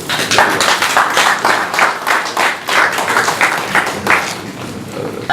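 A group of people applauding, many hands clapping together, thinning out near the end.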